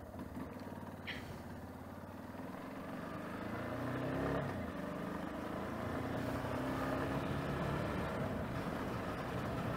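Yamaha XTZ 250 Lander's single-cylinder engine accelerating, its pitch rising, dropping at a gear change about four and a half seconds in, then rising again.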